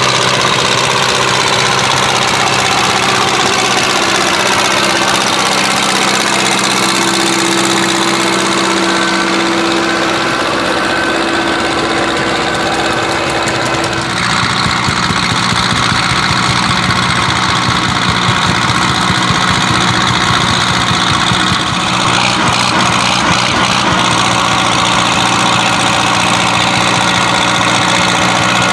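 1953 Steyr 280 tractor's four-cylinder diesel engine running steadily under load while pulling a plough. The engine note shifts about halfway through.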